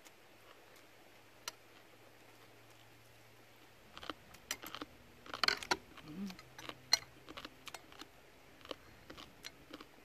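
Metal chopsticks clicking and tapping against a clear plastic food container as food is picked out of it: a scattered run of sharp clicks starting about four seconds in, after a few near-quiet seconds.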